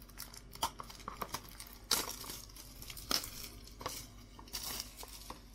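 Plastic shrink wrap being torn and peeled off a trading-card box, crinkling irregularly, with a few sharper crackles about two, three and four seconds in.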